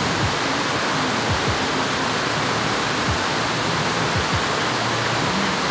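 Steady rush of flowing water from a stream's rapids.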